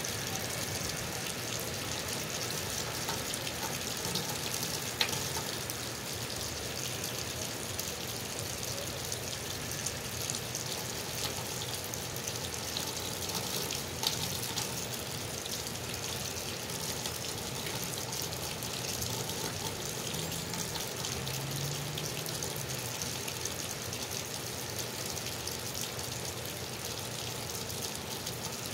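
Stream of rainwater gushing from a spout and splashing onto wet pavement, over steady rain. Two brief sharp clicks, about 5 and 14 seconds in.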